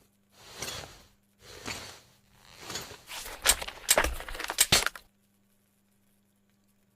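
Clapper rifle sound effect: three rustling swishes, then a quick run of about four sharp, loud cracks that stop about five seconds in, leaving only a faint hum.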